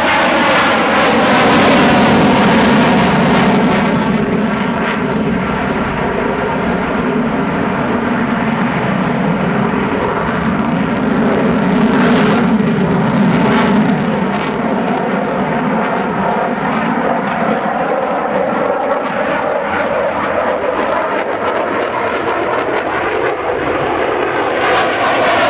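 RAF Eurofighter Typhoon's twin jet engines in a display flypast, a continuous loud jet roar. The sound sweeps downward at first, turns duller and more distant through the middle, then sweeps upward and brightens near the end as the jet comes back toward the listener.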